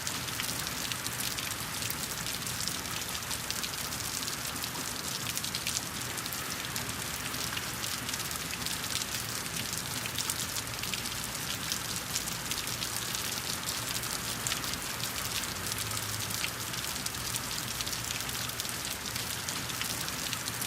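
Steady rain falling: a dense, even hiss made of countless small drop strikes.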